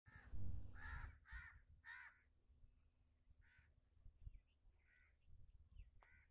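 Crows cawing: a quick run of four caws in the first two seconds, then a few more spaced ones. A low rumble sounds near the start.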